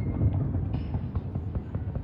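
Fireworks display: a steady low rumble of booms with many small crackling pops through it.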